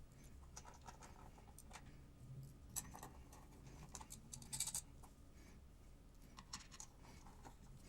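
Near silence broken by a few faint, short clicks and scrapes of small parts being handled on a workbench.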